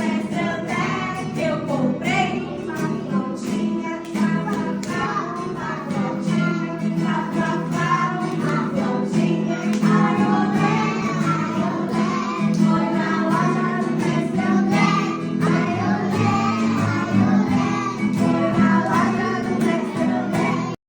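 Young children singing a song along with a strummed acoustic guitar. The music cuts off abruptly near the end.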